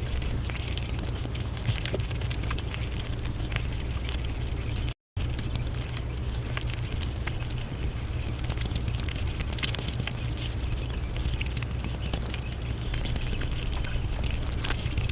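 Close-miked mukbang eating sounds sped up about five times: a dense run of quick wet chewing smacks and crackly clicks. The sound cuts out briefly about five seconds in.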